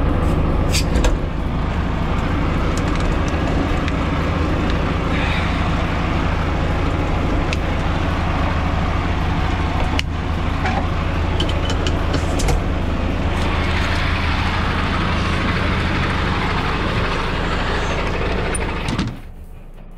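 Heavy diesel engine idling with a steady low hum under loud, even mechanical noise, with a few sharp knocks. The sound cuts off suddenly near the end.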